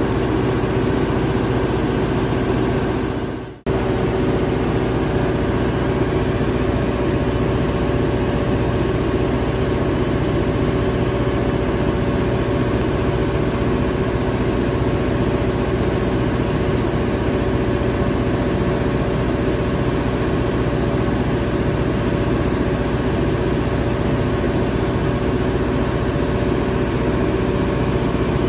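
Cummins 1750 kW diesel generator in a sound-attenuated enclosure running steadily during load bank testing, a constant drone with a stack of level tones. About three and a half seconds in, the sound fades out briefly and cuts straight back in.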